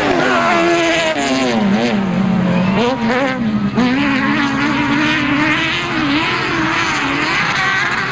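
Autocross race cars running flat out on a dirt track, engines revving up and down through the gears; a car passing close at the start drops in pitch as it goes by.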